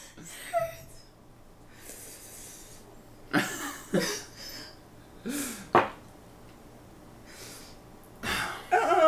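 A person coughing several times, with short sharp bursts and hard breaths in between. The coughing comes from a throat burned by ghost pepper candy.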